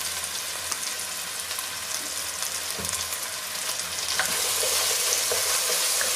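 Rice frying in a tomato sofrito in a pot, with a steady sizzle and a wooden spoon stirring and scraping through it. The sizzle gets louder about four seconds in, when the spoon works the rice.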